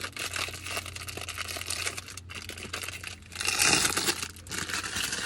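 Plastic crinkling and crackling as a squishy toy in its plastic wrapping is handled and squeezed, louder for about a second partway through.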